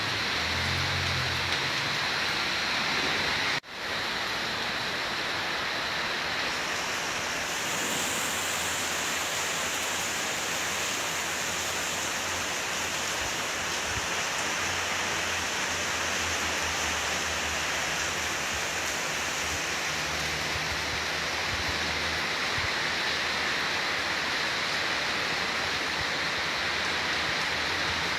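Heavy rain falling steadily, a dense even hiss, with a momentary dropout about three and a half seconds in.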